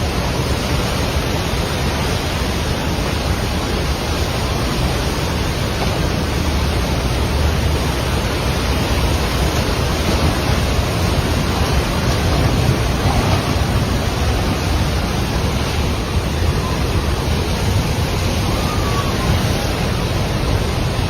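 Trishuli River in massive flood, a loud, steady rush of floodwater.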